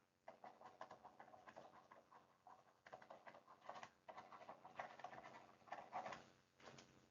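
Near silence with faint, irregular soft clicks and patter, a few each second.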